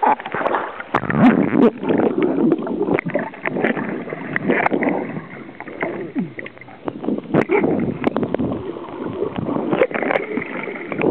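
Seawater splashing and sloshing around a camera held at the surface and then dipped under. The sound is irregular, with many sharp splashes and muffled gurgling.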